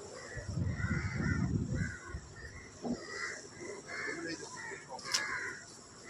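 Crows cawing repeatedly in short harsh calls, over a low rumble in the first two seconds and a couple of sharp knocks near the middle and end.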